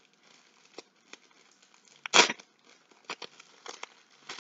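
Rustling and crinkling as craft materials and their packaging are handled, in short separate bursts with the loudest rustle about two seconds in.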